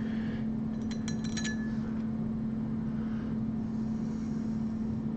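A quick run of light glassy clinks about a second in, over a steady low electrical hum.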